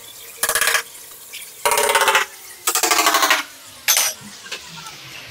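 Hammer blows on a dynabolt anchor set through a steel C-channel rail fixed to a wall, ringing metallic strikes in four short bursts about a second apart, the last one the shortest.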